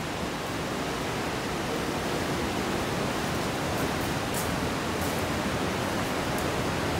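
Steady rush of fast-flowing river water, an even, unbroken roar with a few brief higher splashes.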